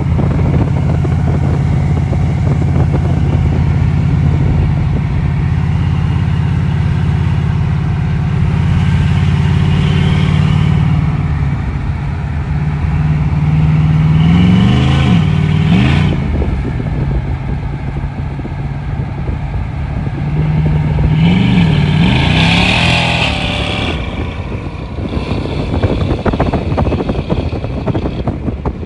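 LS-series V8 with upgraded heads, cam and intake idling steadily, then given quick throttle blips: a pair of revs about halfway through and another pair around three-quarters of the way in, each dropping straight back to idle.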